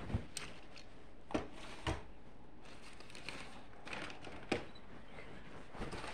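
Handling noise from a camera rubbing against a shirt, with light rustling and four short knocks, the loudest about a second and a half before the end.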